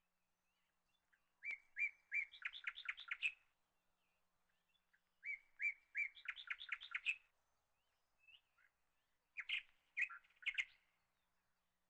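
A small songbird singing the same short phrase three times, a few seconds apart: each phrase is a few clear, even notes followed by a quick run of chirps.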